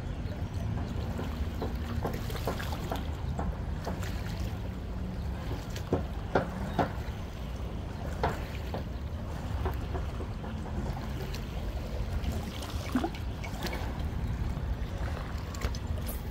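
Sea water washing and sloshing among shoreline rocks, with scattered short splashes and clicks over a steady low rumble of surf and wind.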